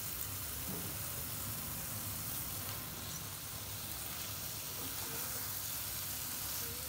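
Masala gravy sizzling steadily in a nonstick kadai as fried prawns are tipped in and stirred with a wooden spatula.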